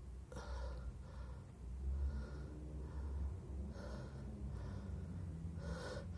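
A person taking short, sniffing, gasping breaths through the nose, about six in a row, roughly a second apart.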